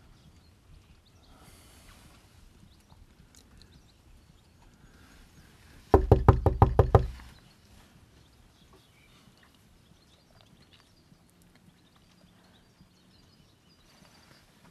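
Knuckles knocking on a wooden door: a quick run of about eight knocks lasting just over a second, about six seconds in.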